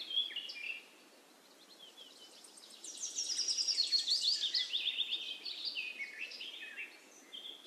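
Birds chirping: a rapid run of high, short chirps, many sliding down in pitch, swells up about two and a half seconds in and tapers off near the end.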